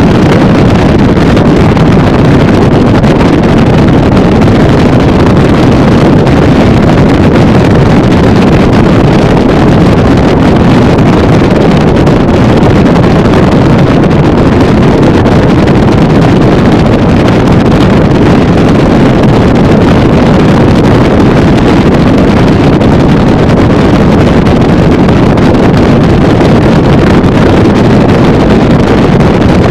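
Motorboat cruising at speed, about 40 mph: a steady, loud rush of wind on the microphone mixed with the engine and the hull running over the water.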